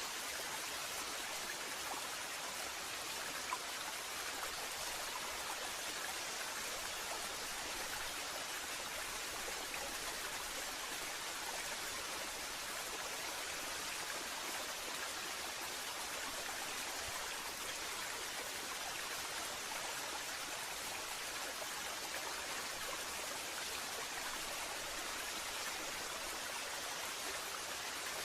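Waterfall: a steady, even rush of falling water with no birdsong.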